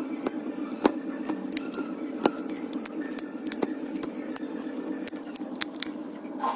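Steel tweezers clicking and scraping against a small metal part from a speaker as crusted deposits are picked off it. There are sharp clicks now and then, the two loudest about a second in and a little after two seconds, over a steady low hum.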